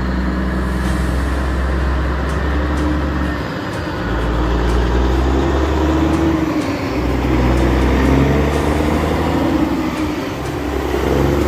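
Heavy logging truck's engine running, its pitch rising and falling a little.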